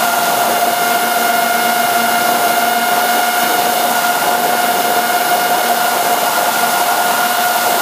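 FPV quadcopter's electric motors and propellers whining at a steady pitch over a constant hiss, holding an even throttle.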